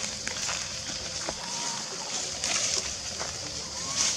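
Dry leaves rustling and crackling as a baby long-tailed macaque scrambles over leaf litter, against a steady high-pitched drone. A couple of faint, short whistle-like calls come through.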